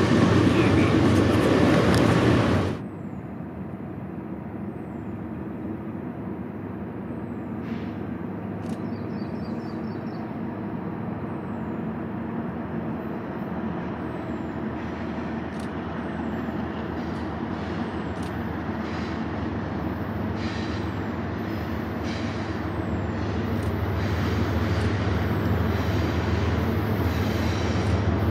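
Diesel locomotives of a BNSF freight train: a steady low engine drone that grows slowly louder as the train draws nearer. About three seconds in, a louder rushing train noise cuts off suddenly.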